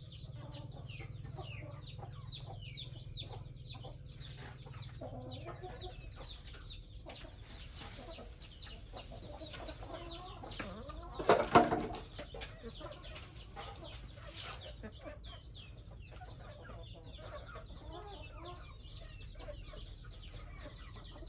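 A flock of chickens calling: a steady chorus of many short, high, falling peeps. One much louder call about halfway through is the loudest sound.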